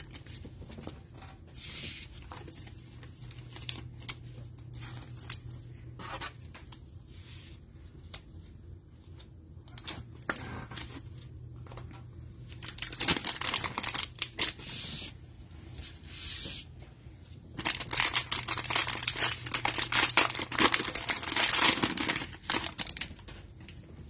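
Plastic wrapper of a Panini Mosaic football hanger pack crinkling and tearing as it is ripped open, in two loud stretches, the first a little past halfway and the longer one from about three quarters through. Before that, quiet rustling and scraping of trading cards being handled and slipped into plastic sleeves.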